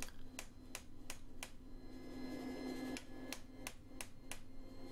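Light hammer blows on a centre punch driving into red-hot steel, about three taps a second: a run of about five, a pause of a second or so, then another run of about five. The punch goes in low and is pushed upward to raise the bridge of the nose on a forged skull.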